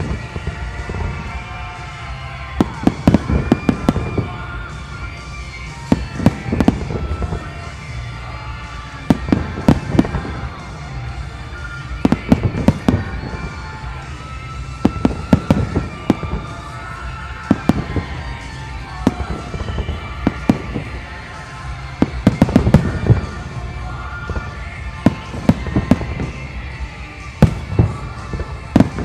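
Aerial firework shells bursting in salvos: clusters of loud bangs every two to three seconds over a continuous low rumble.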